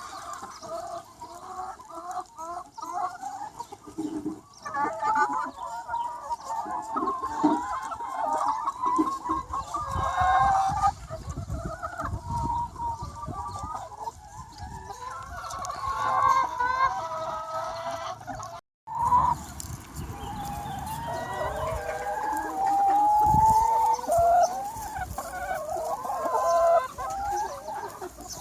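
A large free-range flock of chickens clucking and calling over one another, many hens at once. The sound cuts out for a split second about two-thirds of the way through.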